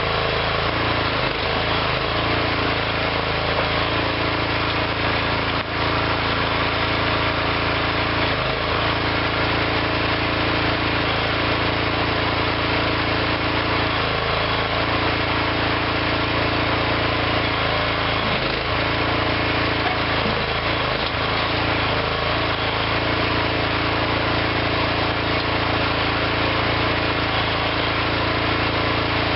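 Small DIY hydraulic backhoe's engine running steadily, with a few brief dips in its tone now and then.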